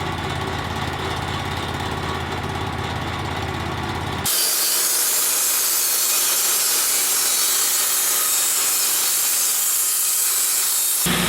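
Wood-Mizer LT35HD portable band sawmill running steadily with a low hum. About four seconds in, an abrupt cut gives way to a loud, even hiss of the band blade cutting through a black walnut log, lasting about seven seconds before the low machine hum returns.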